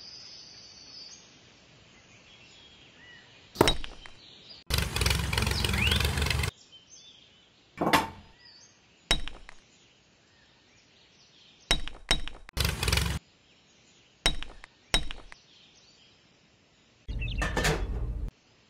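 Small knocks, clicks and clinks of toy plastic pieces being handled and set down: model blocks and a plastic railway track. The sounds come one at a time at irregular gaps, with two longer scraping, rustling stretches about five seconds in and near the end.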